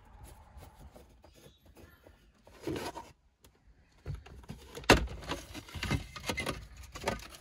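A screwdriver scraping at the screws in the ashtray recess of an R33 Skyline's plastic centre console, then the console trim being pried up and unclipped: a sharp snap about five seconds in, followed by several clicks and knocks of plastic.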